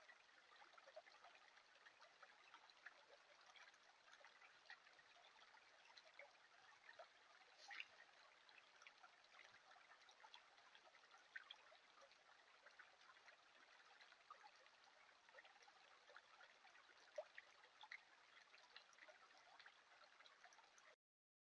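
Faint trickle of a shallow creek: a steady water hiss dotted with small drips and ticks, cutting off abruptly near the end.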